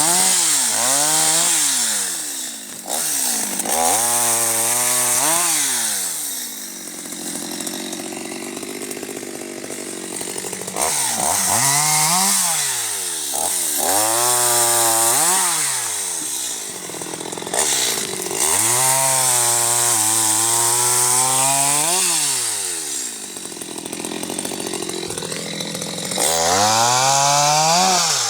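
Stihl MS250 two-stroke chainsaw being throttled up and down over and over while cutting firewood. Its pitch climbs and falls in repeated surges, holds high for a few seconds at a time, and drops back toward idle in between.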